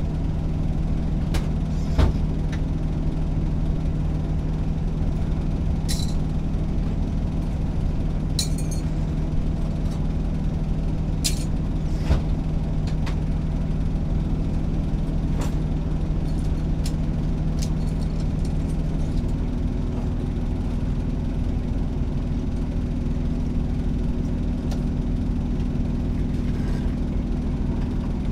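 A truck engine idling steadily, its hum stepping up in pitch about two-thirds of the way through, with scattered light clicks and clinks of wrenches on metal.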